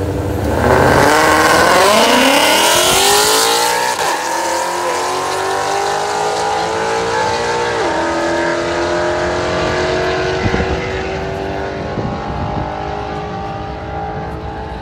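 Two Ford Mustangs launching off the line in a drag race. Their engines rev up with rising pitch, the pitch drops twice at gear shifts about four and eight seconds in, and the sound then fades as the cars run away down the track.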